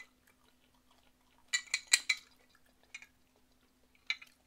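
Liquor poured from a plastic bottle into a small glass shot glass, heard as a few sharp clinks and taps of bottle and glass, the loudest cluster about a second and a half to two seconds in and single ticks near the end.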